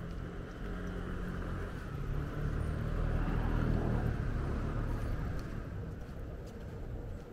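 A motor vehicle passing along the street: engine rumble and tyre noise grow to a peak about halfway through, then fade away.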